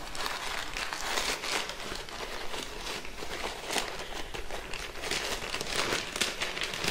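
Packing paper being pulled out by hand, crumpling and crinkling in a continuous irregular crackle.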